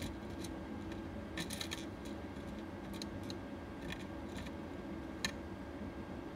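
Light clicks and taps of laparoscopic grasper tips against a bowl and the beads in it: a quick cluster about a second and a half in, then single clicks, the sharpest about five seconds in. A steady low hum lies underneath.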